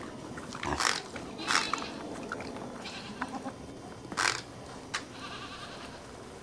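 Pig grinding its teeth loudly: short grating, crunching scrapes, four of them, the loudest near 1.5 s and 4 s.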